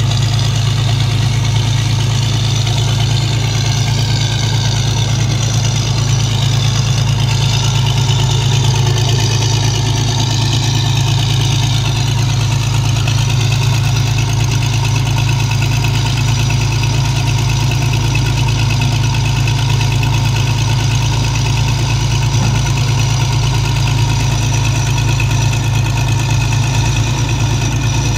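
Heavy diesel engine running at a steady speed with a constant drone, from the machinery of a suction dredge and excavator at work.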